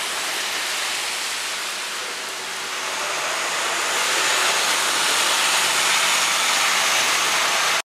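Steady hiss of rain and of car tyres on a wet street, growing louder about halfway through, then cutting off abruptly near the end.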